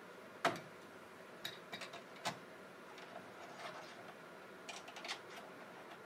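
Light clicks and small knocks as a compact camera is handled and fitted onto a cold shoe rail: a sharp click about half a second in, two more a second or so apart, then a few fainter ticks.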